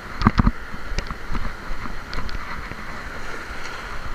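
Surf washing over rocks and wind buffeting the microphone, with scattered knocks and clicks from the spinning rod and reel being worked while a hooked fish is fought; the loudest knocks come just after the start.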